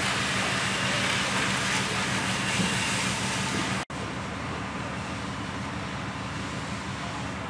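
Steady engine drone with a hiss over it. The sound drops out for an instant a little past halfway, and the hiss is quieter afterwards while the drone carries on.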